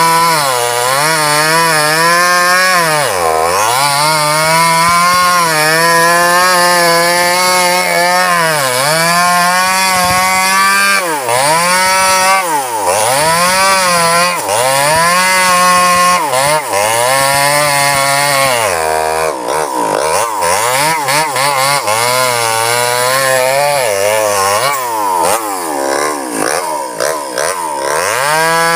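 Two-stroke chainsaw cutting through a felled sengon log, engine held near full throttle, its pitch sagging again and again as the chain loads up in the wood and then climbing back as it clears. From about two-thirds of the way in, the dips come quicker and choppier.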